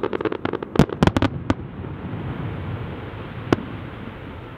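Aerial fireworks display: a rapid run of bangs and crackles for about a second and a half, then a steady rumbling haze with one more single sharp bang about three and a half seconds in.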